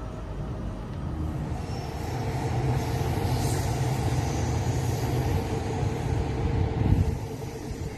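A steady low rumble with a hiss of background noise. It swells about two seconds in and peaks briefly near the end.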